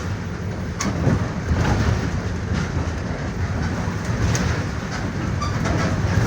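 Mercedes-Benz OF-1418 bus on the move, its diesel engine running with a steady low drone, with the body and fittings giving several sharp rattles and knocks.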